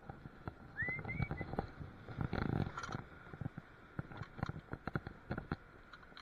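Scattered clicks, knocks and scuffs of an angler handling fishing tackle and moving over the rocks. A short noisy scuffle comes in the middle, and a brief rising squeak about a second in.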